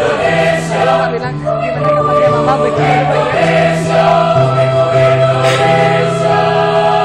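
High-school choir singing in parts, holding long chords over a bass line that steps from note to note.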